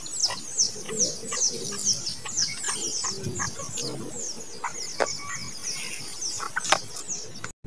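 A bird calling over and over, a high falling note repeated about three times a second, with faint knocks and rustles below it.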